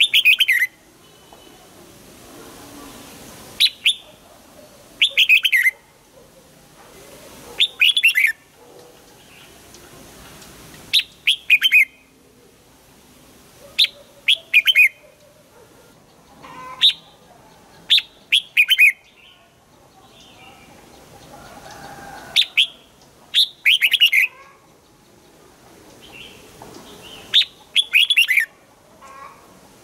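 Red-whiskered bulbul singing: short, clear whistled phrases of two or three quick falling notes, repeated every two seconds or so.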